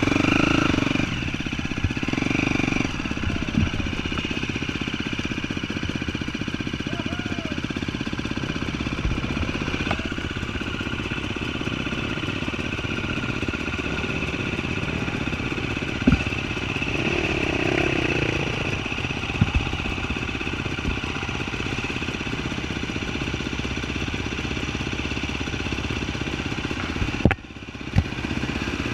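An off-road vehicle's engine running steadily on the trail, with a few sharp knocks and bumps, and a brief drop-out about a second before the end.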